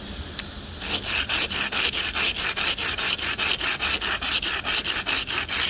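Steel broadhead blade, held in a KME sharpener clamp, scraped rapidly back and forth on a concrete slab, about five to six strokes a second, starting about a second in and stopping abruptly. The concrete is grinding the rough factory edge down to a bevel and raising a burr.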